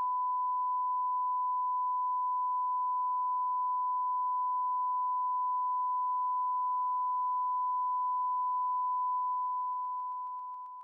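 A single steady electronic tone at about 1 kHz, one unbroken pitch that grows slightly weaker near the end.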